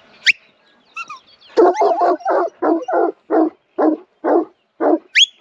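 Working sheepdog barking steadily, about two barks a second, while driving sheep down a hill. A short, sharp rising whistle sounds just after the start and again near the end.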